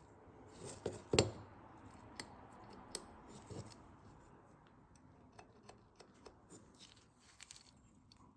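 Faint metallic clicks and light knocks of a Sig P365 pistol's parts being handled, with one louder knock about a second in.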